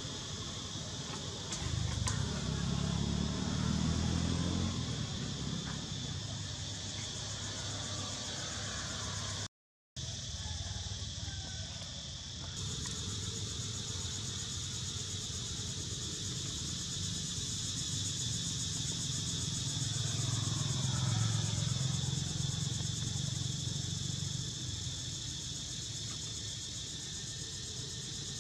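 Steady outdoor chorus of insects buzzing in high, even bands, with a low rumble that swells twice. The sound drops out completely for a moment about a third of the way through.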